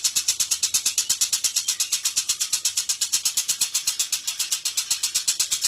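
Lovebird's long ngekek chatter: a rapid, unbroken run of high-pitched notes, about eight a second, kept going without a break.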